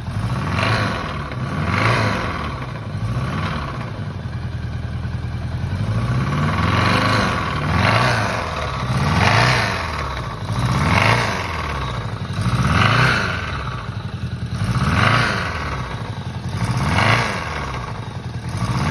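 1976 Honda Gold Wing GL1000's flat-four engine running and being blipped again and again, its pitch rising and falling about every two seconds. The engine is making an unwanted running noise that the owner reports as a problem.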